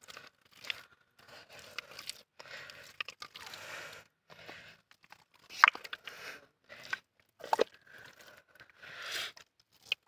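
Hands squelching and pulling through thick wet mud, in irregular bursts with short gaps and a few sharp wet smacks.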